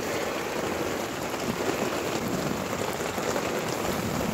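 Heavy rain falling steadily on the shepherds' tarp tent, an even hiss of many drops.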